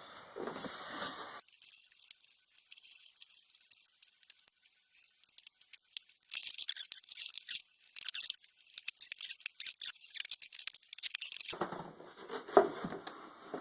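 Quick clicks, scrapes and rattles of hand tools and metal parts while the motor is taken off an air compressor. The sound is thin and tinny with no low end, and grows busy about six seconds in.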